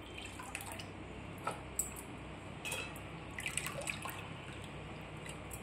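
Faint water dripping and small splashes with scattered light ticks as rinsed dried anchovies are lifted by hand out of a pan of water into a metal strainer.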